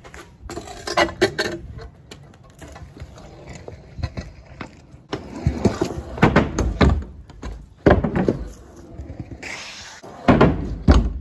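Stunt scooter rolling on concrete, with clacks and knocks from the deck and wheels, then several heavy thumps near the end.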